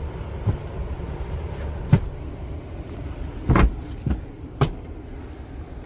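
A steady low rumble with a handful of short knocks and thumps, the sharpest about two seconds in and a heavier pair around three and a half seconds.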